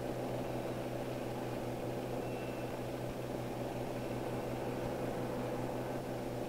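A steady low mechanical hum with a hiss over it, unchanging throughout.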